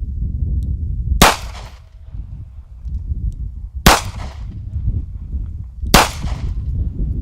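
Three shots from a lightweight Smith & Wesson scandium-titanium hybrid revolver, about two to three seconds apart, each a sharp crack with a short echoing tail, over a steady low rumble.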